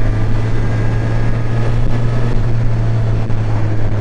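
Suzuki Katana's 999 cc inline-four running at steady revs while the bike cruises, heard from the saddle.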